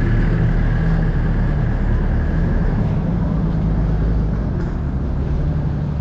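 A machine engine running steadily with a low rumble, and a thin high whine that fades out about halfway through.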